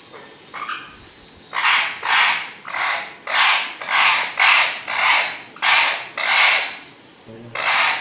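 A parrot giving a run of about nine harsh squawks, roughly two a second, while restrained by hand for a needle puncture.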